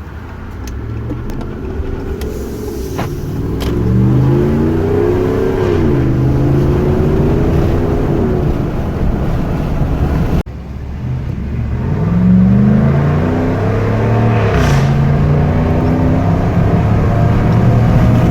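A 2014 Ram 1500's 5.7-litre Hemi V8 accelerating on a test drive, its note climbing and then dropping as the transmission shifts up, twice. It runs smooth, with no misfire, after its faulty ignition coil pack was replaced.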